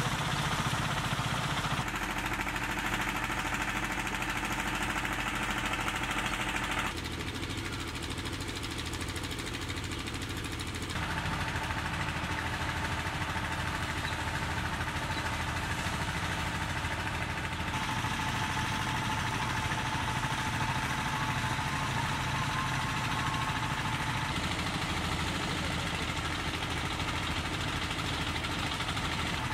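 An engine running steadily, a low hum with an even, unchanging pitch. Its level and tone shift abruptly a few times.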